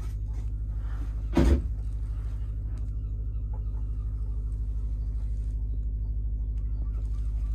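An engine on board running steadily, a low hum that pulses at an even rate, with one loud thump about a second and a half in.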